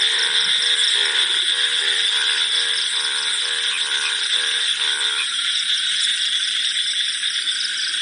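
Night chorus of crickets trilling steadily, with frogs croaking in a quick rattling rhythm of about three calls a second; the croaking stops about five seconds in, leaving the high cricket trill.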